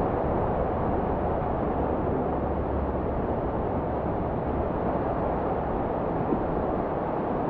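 Steady rushing noise of ocean surf at the water's edge, with wind on the microphone adding a deep rumble.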